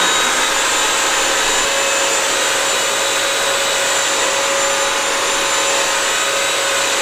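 Bissell CrossWave wet-dry vacuum running in hard-floor mode as it mops a hardwood floor. Its motor gives a steady whine with a few held tones.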